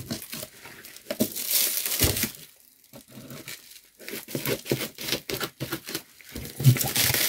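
Scissors snipping and tearing through the plastic film wrapped around a cardboard parcel, the plastic crinkling as it is cut and pulled, with a pause of about a second near the middle.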